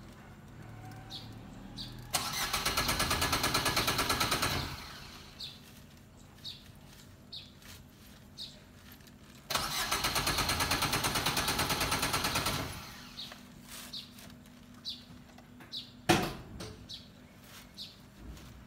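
A Suzuki Swift's engine is cranked twice by its starter motor, each time turning over in rapid, even pulses for about three seconds and then stopping, without settling into an idle: a car that won't start. Later comes a single sharp knock, and faint bird chirps sound between the attempts.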